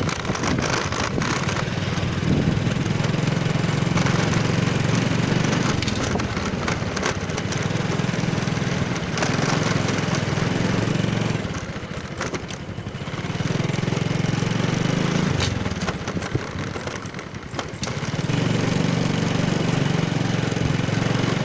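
Small motor scooter engine running while riding, with steady wind and road noise over the microphone. The engine eases off twice in the second half, then picks up again.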